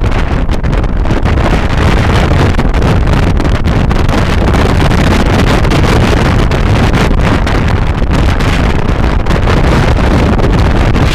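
Loud, steady wind buffeting on the microphone of a scooter riding at speed, drowning out most other sound.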